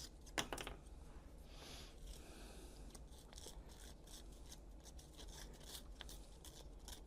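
Faint scratching strokes of 220-grit sandpaper rubbing down the leftover support pin heads on a resin 3D print, with a longer stroke near the start and then many short quick ones.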